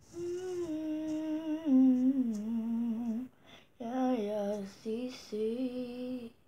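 A young girl humming a slow tune in long held notes that step down in pitch, breaking off briefly about three and a half seconds in.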